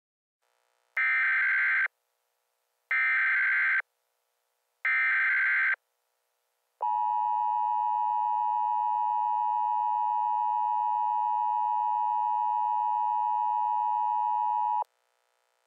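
Emergency Alert System header: three short bursts of SAME digital data tones, each under a second, followed by the two-tone EAS attention signal (853 and 960 Hz together). The attention signal holds steady for about eight seconds and cuts off suddenly. It announces an incoming emergency alert, here a severe thunderstorm warning.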